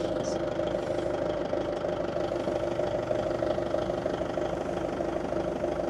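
An engine idling steadily with an even hum, most likely the machine that has just hoisted the boat's engine out.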